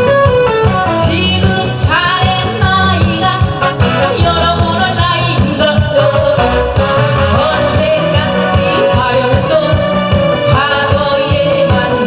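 A woman singing a Korean popular song (gayo) into a handheld microphone over a recorded backing track with a steady beat.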